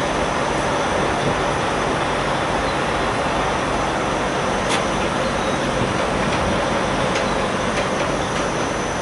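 Steady drone of idling semi-truck diesel engines, with a single sharp click about halfway through.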